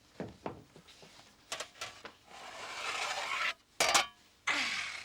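Kitchenware and baking tins handled as cakes are checked and taken out. There are a few light knocks and clinks, then a rising rush of noise, then one loud clatter about four seconds in.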